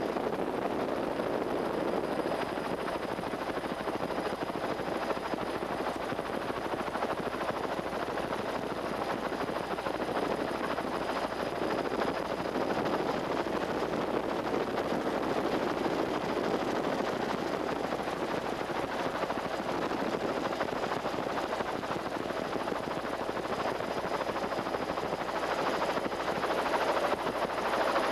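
Steady helicopter engine and rotor noise heard on board, growing a little louder near the end.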